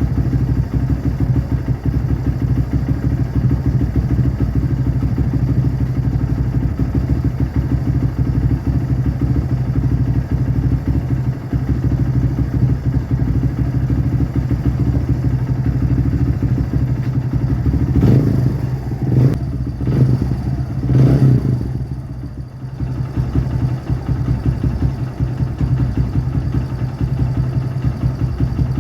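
Kawasaki Barako II motorcycle's single-cylinder four-stroke engine idling steadily, revved briefly three times in quick succession a little past the middle, then dipping for a moment before settling back to idle. The idle is being set on an engine that has been hard to start.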